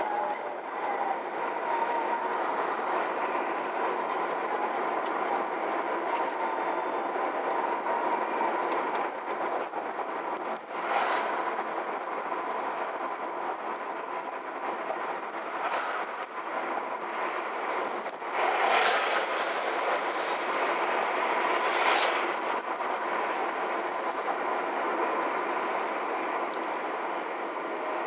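Steady road and engine noise inside a moving car, with a faint steady hum, and a few brief louder whooshes as oncoming vehicles pass, the biggest about 19 seconds in.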